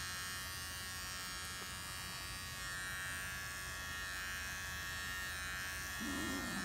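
Electric beard trimmer buzzing steadily as its blades cut hair close against the scalp, shaving a head.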